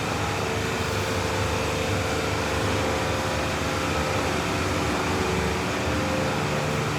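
Steady mechanical drone with a faint held hum, unchanging throughout.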